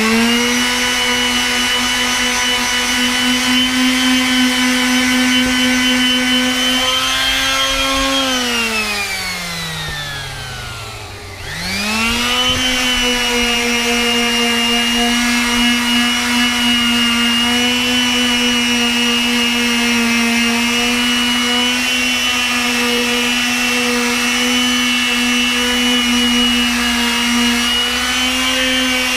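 Makita random orbit palm sander running steadily while sanding deck boards; about eight seconds in it is switched off and spins down with a falling pitch, then is switched back on a few seconds later, spins up and runs steadily again.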